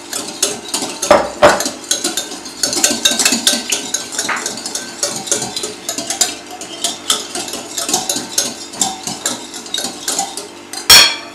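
Metal wire whisk beating a thin egg-and-milk mixture in a glass bowl: fast, uneven clicking and scraping of the wires against the glass. A louder knock comes about a second in, and a single loud clank near the end.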